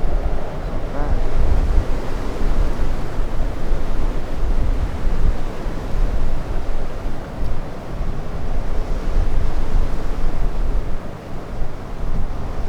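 Strong wind buffeting the camera microphone: a heavy low rush that rises and falls in gusts and eases briefly about eleven seconds in.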